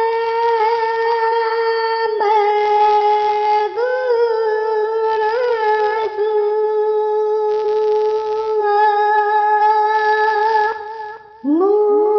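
A voice singing long held notes on nearly one pitch, each note opening with a short waver in pitch, with a brief drop in level near the end.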